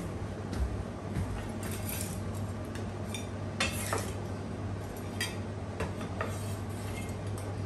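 A cleaver scraping and tapping on a plastic cutting board as chopped crispy pork belly is scooped onto a plate: a string of irregular clicks and knocks, the loudest a little before four seconds in. A steady low hum runs underneath.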